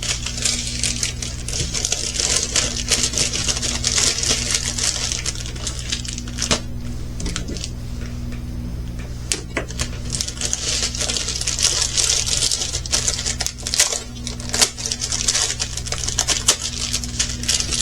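Plastic packaging and small bags of diamond-painting drills being handled, with continuous crinkling and many small clicks over a steady low hum.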